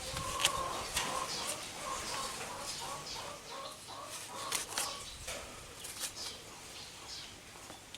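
Chickens clucking: a run of short clucks, two or three a second, that fade out about five seconds in, with scattered sharp clicks.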